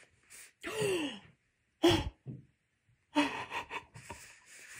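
A person's excited gasps: a breathy 'oh' falling in pitch about a second in and a short sharp gasp near two seconds. They are followed by the rustle and slide of stiff card as a photo card is drawn out of a cardboard album sleeve.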